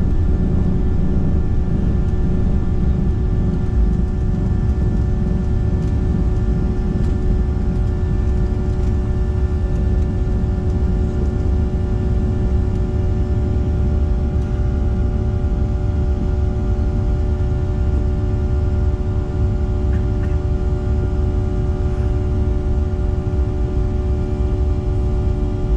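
Jet airliner cabin noise during takeoff and climb-out: a loud, steady low rumble with several engine tones held at a constant pitch.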